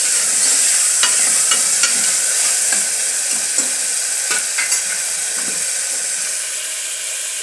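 Chopped tomatoes, onion and ginger-garlic paste frying in sesame oil in an aluminium pressure cooker, a steady sizzle. A ladle scrapes and taps against the pot as they are stirred through the first five seconds or so.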